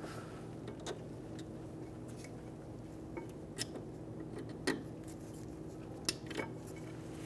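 A steel-backed disc brake pad being seated into the caliper bracket's new spring-steel hardware clips: a handful of separate light metallic clinks and clicks, over a steady low hum.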